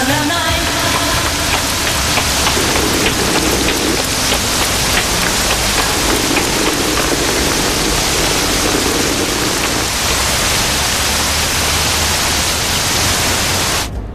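Steady, loud rain falling, a dense hiss with no other clear sound over it, which cuts off suddenly near the end.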